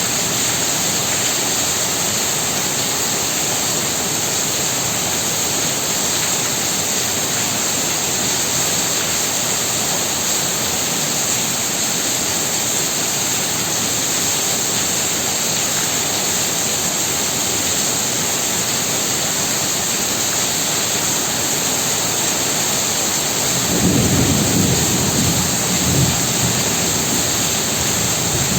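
Heavy rain falling hard and steadily. Near the end a deep low rumble swells for a few seconds.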